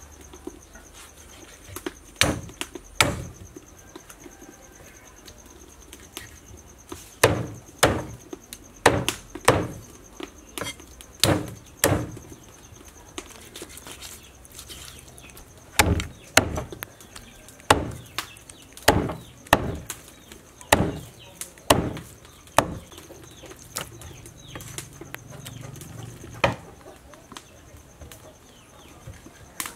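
Cleaver chopping a pig leg into chunks on a wooden chopping board: single sharp chops, mostly about a second apart, broken by pauses of a few seconds.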